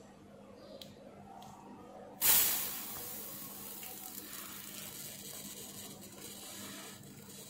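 16 V electrolytic capacitor wired in reverse polarity venting: a sudden loud hiss of escaping gas about two seconds in, easing into a steady, quieter sizzling hiss. Heating from reverse-polarity leakage current has built up pressure inside the can until its vent gives way.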